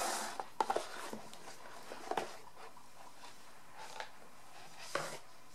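Handling noise from an album photobook and its cardboard box: a few soft knocks and taps as the book is moved and set down on a wooden table, with light rustling in between.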